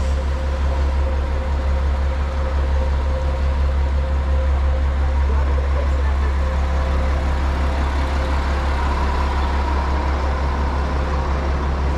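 KiHa 47 diesel railcar idling while standing at the platform: a steady low engine drone with a fainter, higher steady hum over it.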